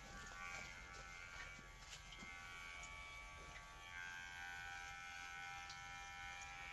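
Electric hair clippers buzzing steadily as they trim a man's hair.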